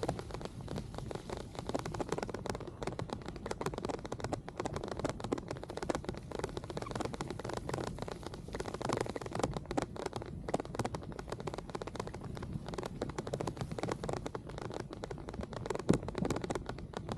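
Rain pattering and crackling in dense small clicks close on the microphone, over the hiss of bicycle tyres rolling on wet pavement.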